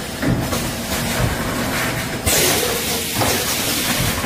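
Rotary ice-cup sealing machine running, a steady mechanical clatter with knocks, and a loud hiss a little over two seconds in that lasts under a second.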